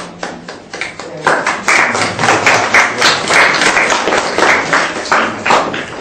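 A group of people clapping: a few scattered claps at first, building about a second in to steady applause that stops shortly before the end.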